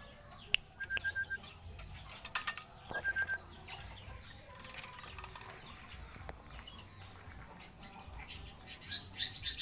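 Pet lory chirping: short quick runs of three or four high notes, with a few scattered clicks and rustles and a busier burst of chirps near the end.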